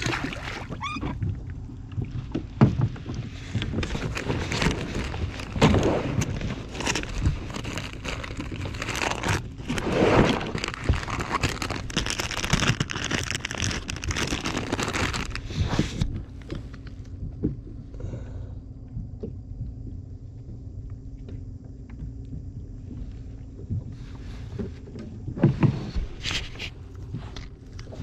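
Close handling noise: a plastic bag crinkling and a jacket sleeve rubbing over the microphone, dense for the first half and again briefly near the end, over a steady low hum.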